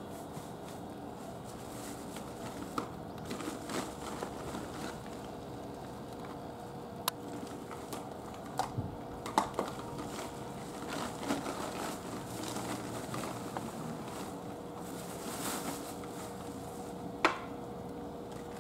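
A cat eating wet food from a bowl: irregular soft chewing and smacking, with occasional sharp clicks against the bowl, the loudest near the end. A faint steady hum runs underneath.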